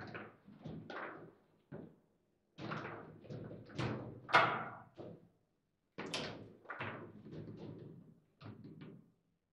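Foosball table in play: a rapid, irregular series of hard knocks and clacks as the ball is struck by the plastic figures on the rods and hits the table, with short pauses between flurries and the loudest crack about four and a half seconds in.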